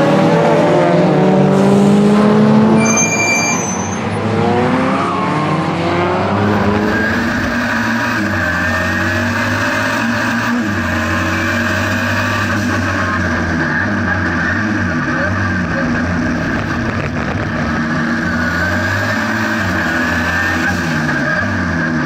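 Modified Renault 5 GT Turbo race car, its turbocharged 1.4 four-cylinder driven hard on track, with a second car alongside. At first it is heard from trackside, several engine notes sweeping in pitch as they go past. About six seconds in the sound switches to inside the cabin, where the engine runs hard, its pitch rising and falling with throttle and gear changes.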